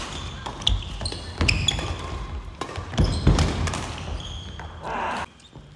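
Badminton doubles rally on a wooden gym floor: rackets smacking the shuttlecock, the loudest hit about three seconds in, with sneakers squeaking on the floor and footsteps between shots. The sound drops off suddenly near the end.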